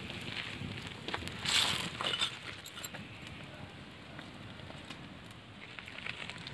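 Small open fire of dry sticks crackling faintly, with light clicks and rustles as sticks are laid on it, and a brief breathy rush about a second and a half in.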